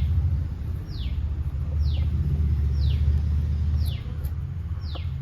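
A bird giving one short call sliding down in pitch, repeated about once a second, over a steady low hum.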